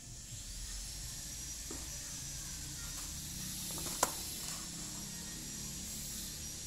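Steady high-pitched hiss, with one sharp tap about four seconds in as a lens and a cardboard box are handled on a cutting mat.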